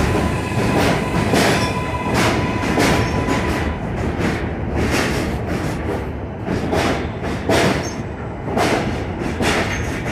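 New York City subway L train rolling slowly along the platform, its wheels clicking irregularly over rail joints about once every half to one second over a continuous low rumble, with a faint steady high whine.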